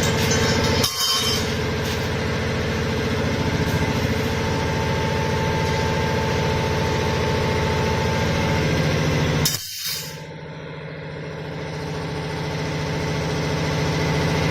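Automatic fan-grill frame welding machine running with a steady low hum. There is a short hiss about a second in and a louder hiss about nine and a half seconds in; after the second one the sound drops and slowly builds back up.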